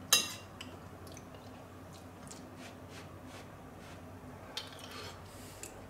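A short, sharp clatter at the very start, then quiet, faint chewing and mouth sounds of a man eating a spoonful of beef-and-rice goulash, with a few soft ticks and clicks.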